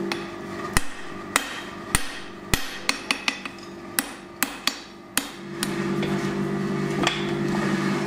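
A hand hammer strikes hot steel bar on an anvil, about a dozen ringing blows at an uneven pace over the first five seconds. Then a power hammer's motor takes over with a steady hum.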